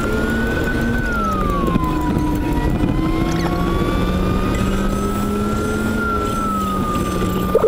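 Acura RSX engine running at highway speed, a steady whine that drops in pitch about a second in and then slowly climbs again, as with a change in revs.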